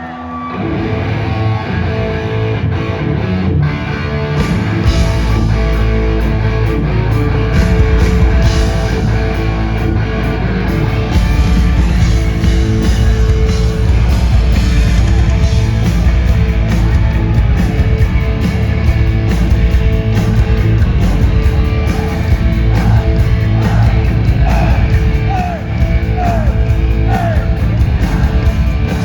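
Live punk rock band playing loud, with distorted electric guitar, bass and drums; the sound swells at the start and a heavy low end comes in about five seconds in.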